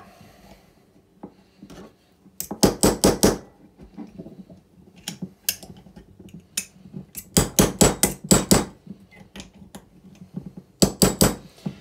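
Small hammer tapping on a drift, driving a new ball bearing down into a small electric motor's can to seat it flush. Sharp metallic taps come in quick runs: about six a couple of seconds in, a few single taps, about eight more in the middle, and a last few near the end.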